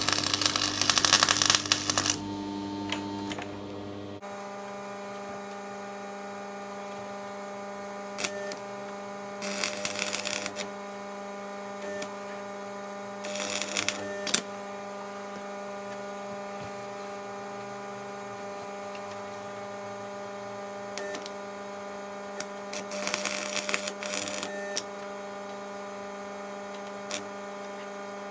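Electric arc welder humming steadily, broken four times by short runs of crackling arc, each a second or two long, as tack welds are laid on a broken motorcycle frame part.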